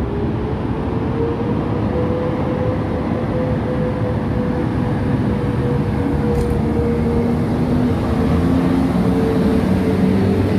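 EP09 electric locomotive at the head of an Intercity passenger train, arriving slowly along a station platform and rolling past. Wheel-and-rail rumble under a steady whine that sinks slightly in pitch, with lower tones joining near the end.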